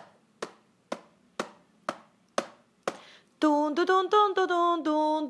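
About seven sharp taps at an even beat of roughly two a second. About three and a half seconds in, a voice takes up wordless 'tu-tu-tun' scat singing, unaccompanied and louder than the taps.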